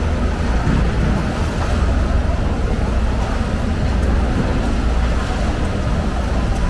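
Steady low rumble with a hiss over it: the constant background noise of a working fish market, machinery or vehicles running nearby.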